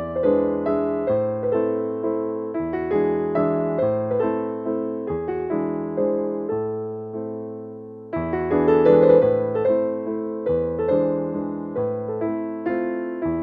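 Background music: a piano playing a gentle melody over chords, easing off briefly about two-thirds of the way through before picking up again.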